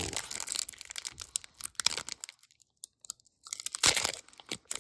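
Foil Pokémon booster pack wrapper being torn open and crinkled by hand, a crackling rustle that dies away for about a second halfway through and comes back louder near the end.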